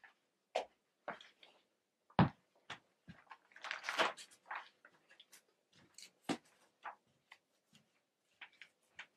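Irregular knocks, clicks and rustles of a person moving about in a small room, with a thump about two seconds in and a denser rustling stretch around four seconds.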